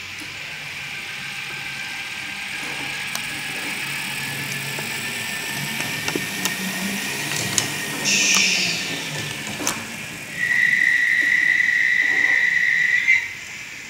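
Märklin Köf II model locomotive's digital sound decoder playing its diesel engine running sound through the model's small speaker. A short hiss comes about eight seconds in, then a loud, steady, high-pitched tone held for nearly three seconds near the end.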